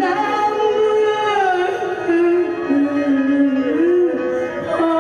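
A slow, mournful sung lament: a solo voice holds long notes and slides between pitches, over instrumental backing.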